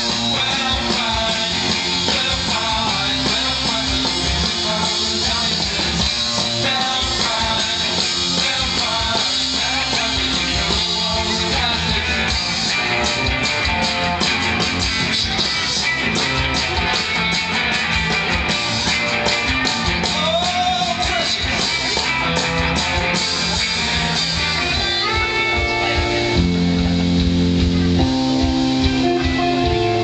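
A live band playing amplified music, led by guitars.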